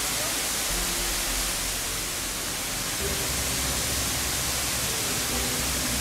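Steady rushing hiss of falling water, such as a waterfall.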